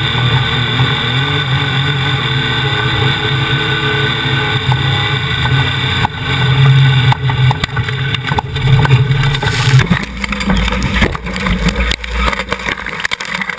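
Boat engine running at a steady pitch. About ten seconds in, the tone drops away into rougher, lower noise.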